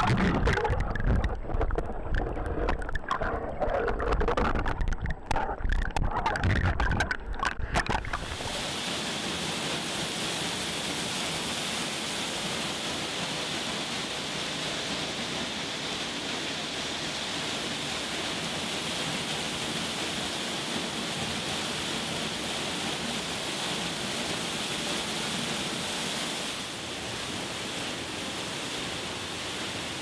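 Stream water heard with the camera dipped below the surface: choppy, uneven gurgling and churning. About eight seconds in it cuts to a steady rush of falling water from a creek and waterfall, which drops slightly in level near the end.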